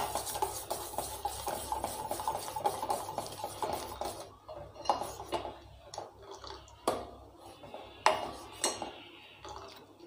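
Steel spoon stirring and scraping around a small stainless steel pan of thick, boiling sugar syrup, with rapid clinking for about four seconds. Then come several separate taps of the spoon against the pan.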